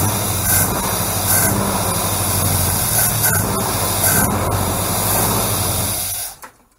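Chrysler 318 small-block V8 idling steadily with a loud hiss over it, on its check run after new valve stem seals were fitted to cure smoking on startup. The sound cuts off about six seconds in.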